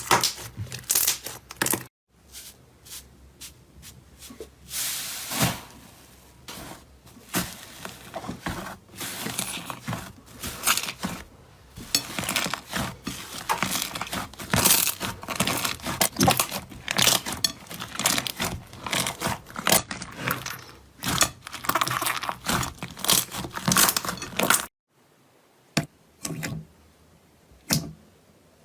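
Slime being squeezed, poked and stretched by hand, giving dense runs of crackling, popping clicks. The sound breaks off briefly twice, and the clicks turn sparse near the end.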